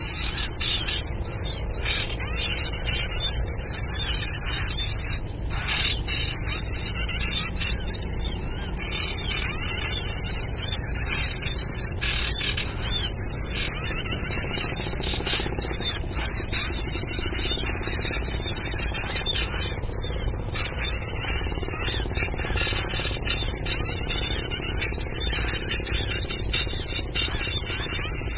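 Bird-trapping lure call played from a speaker: a dense, unbroken chatter of high-pitched chirps and trills, used to draw sunbirds down to glue sticks.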